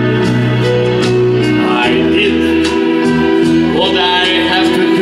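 A man singing into a microphone over an instrumental backing track, amplified through loudspeakers, with the voice coming in briefly about two and four seconds in.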